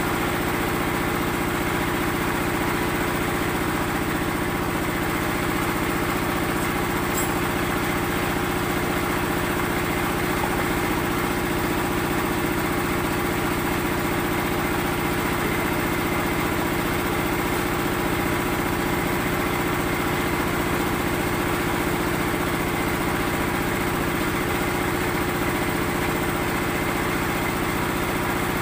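Small engine running steadily without letup, driving concrete-block (batako) making machinery.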